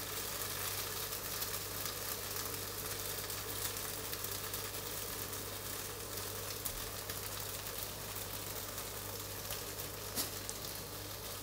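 A Norwegian pancake frying in a pan, its second side cooking just after the flip: a steady sizzle with fine crackles. A steady low hum runs underneath.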